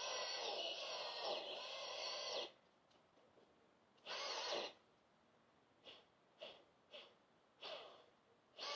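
Chainsaw running steadily, then cutting off about two and a half seconds in. It comes back in one short burst and several quick throttle blips, then runs steadily again near the end.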